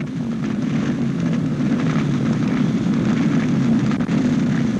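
Engines of a pack of motocross motorcycles running together in a loud, steady drone.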